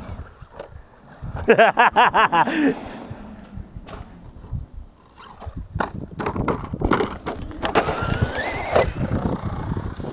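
Small electric RC car driving on a concrete skate bowl, wheels and chassis clattering with a run of sharp knocks and bangs in the second half as it bounces over the surface. A rising electric-motor whine comes in about eight seconds in. A short burst of laughter-like voice comes about a second and a half in.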